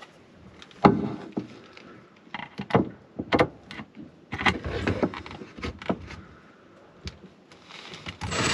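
Irregular knocks and clatter of a plastic enclosure being handled and pressed against a caravan's underfloor while it is fixed up with a cordless drill. A Ryobi cordless drill starts to run right at the end.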